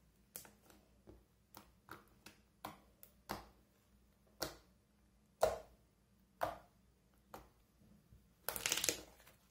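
Slime being pressed and squeezed, making a series of sharp pops and clicks about one a second, then a quick run of crackling near the end.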